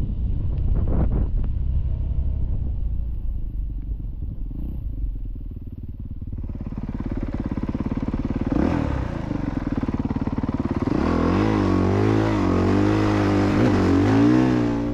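Dirt bike engine running low at first, then revving harder from about halfway, its pitch rising and falling repeatedly as the throttle is worked.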